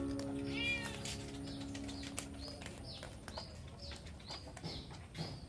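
A kitten mewing once about a second in, over a held music chord that fades out in the first couple of seconds. Then a quick series of short high chirps, about two or three a second, with small clicks from kittens eating out of a plastic bowl.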